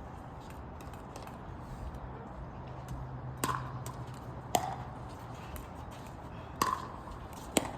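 Pickleball paddles hitting a hard plastic ball in a rally: four sharp pops with a short ring, spaced one to two seconds apart. A steady low rumble of wind runs underneath.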